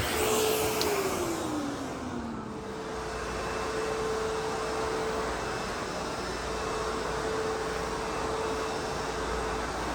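ProTeam Super CoachVac backpack vacuum running steadily. About a second in, its motor hum slides down in pitch and fades, then returns to its usual pitch about two seconds later.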